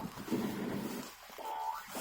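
Rustling of torn plastic packaging, followed about a second and a half in by a short pitched note.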